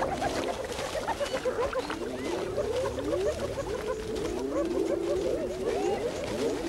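A chorus of spotted hyenas calling: many overlapping cries swooping up and down in pitch, as rival clans clash.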